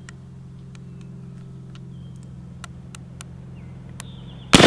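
A single shot from an original 1853 Enfield .58-calibre percussion rifle-musket firing a black-powder charge, coming near the end: a sudden loud blast with a long fading echo. Before it, a few seconds of steady low hum with faint scattered ticks.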